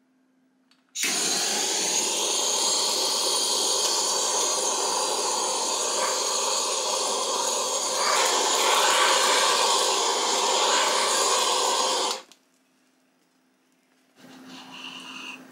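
Handheld gas kitchen torch lit and running with a steady hiss as it sears the scaled skin of a fish fillet. It starts about a second in, gets a little louder partway through, then cuts off abruptly.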